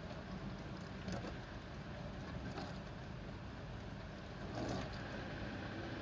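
Electrolux dishwasher running its wash cycle: a steady pump hum with water spraying inside the tub, and a few louder swishes of water about one, two and a half and four and a half seconds in.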